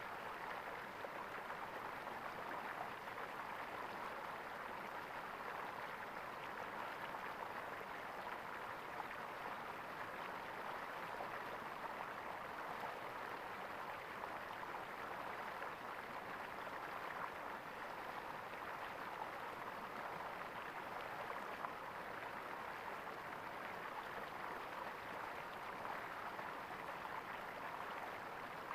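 Running water gurgling steadily, an even, unbroken rush of water.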